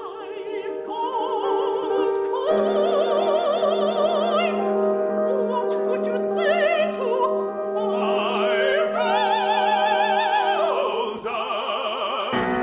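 Operatic singing with a wide vibrato, high voices over held accompaniment chords that come in a couple of seconds in; the music dips briefly near the end.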